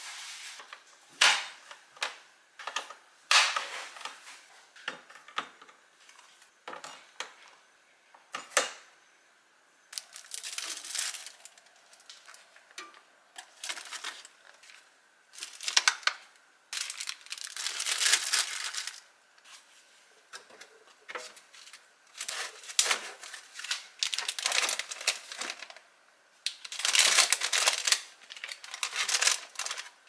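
Refrigerator contents being handled and put away: sharp clicks and knocks of containers set into clear plastic shelves and drawers. From about ten seconds in come several longer bursts of crinkling plastic wrap and packaging.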